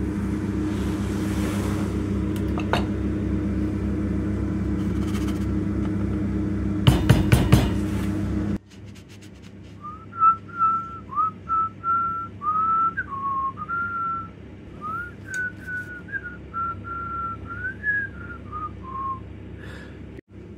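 A person whistling a tune: a string of short notes that slide up and down in pitch, starting about halfway through. Before it there is a steady low hum with a quick cluster of loud knocks.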